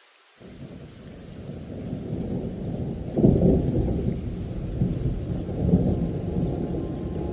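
Thunder rolling over steady rain: a deep rumble sets in suddenly about half a second in, swells to its loudest clap around three seconds, and keeps rumbling while the rain hisses on.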